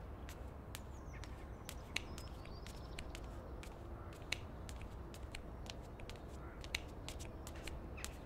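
Faint footsteps, heard as scattered light clicks over a low steady hum.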